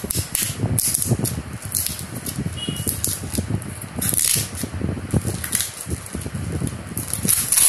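A cardboard shipping box being opened by hand: packing tape peeled off in irregular crackly rips, the longest about four seconds in, with cardboard rustling, tearing and knocking against the board under it.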